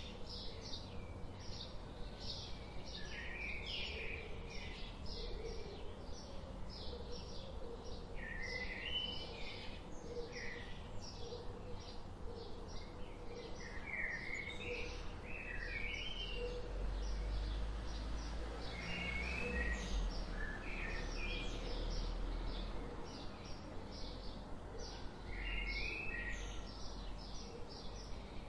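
Birds chirping: many short, high calls repeating throughout, over a low rumble that swells in the middle.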